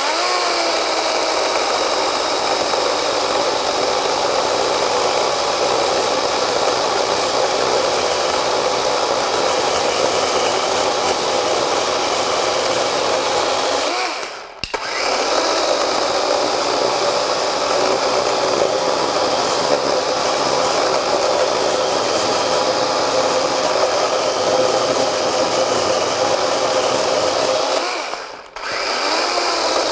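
DeWalt 12-inch 20V cordless top-handle chainsaw running steadily under load as it cuts through hard black locust. It stops briefly about fourteen seconds in and again near the end, then starts cutting again.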